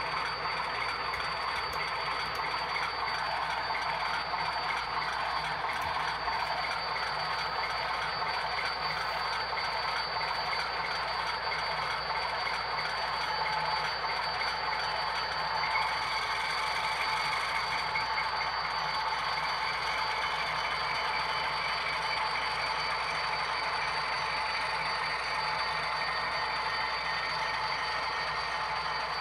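Model railroad turntable rotating, its drive mechanism giving a steady whir with a light gear rattle, alongside the model diesel switcher's running sound as it moves off the turntable near the end.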